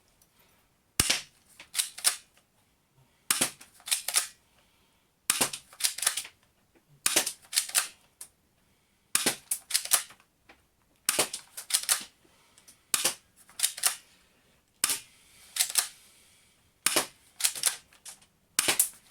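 Spring-powered Double Eagle P329 airsoft pistol fired about ten times, roughly one shot every two seconds. Each shot comes with the quick clacking of the slide being pulled back to re-cock the spring for the next shot.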